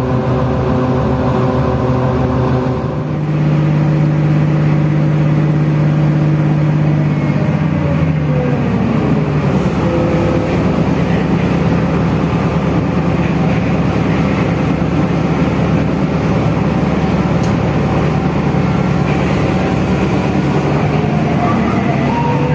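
Diesel railcar (KRD commuter train) engine running under way, heard from inside the carriage. Its pitch falls gradually about seven to nine seconds in, holds steady, then starts to rise again near the end.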